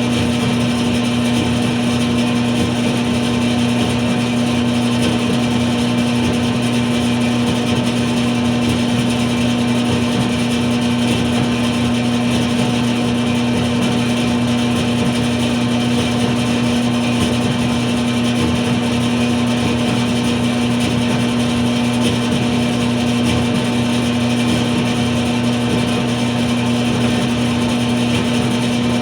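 A dryer running steadily: an even rushing noise with a constant low hum underneath.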